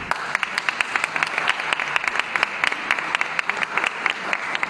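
Crowd applauding: many hands clapping steadily and densely.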